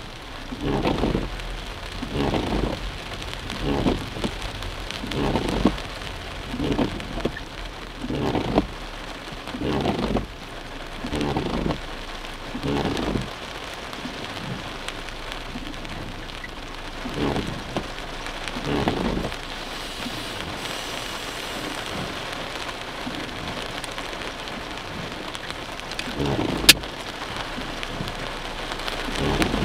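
Heavy rain drumming on a car's roof and windshield, heard from inside the cabin. The windshield wipers sweep about every second and a half through the first half, then only occasionally. One sharp click comes near the end.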